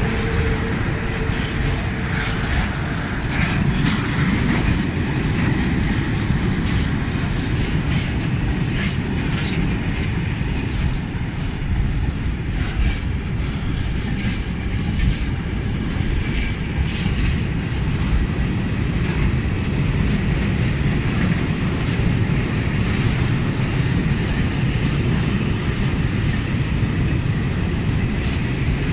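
Freight train of tank wagons rolling past close by: a steady rumble of steel wheels on the rails, with irregular clicks as the wheels pass over the rail joints.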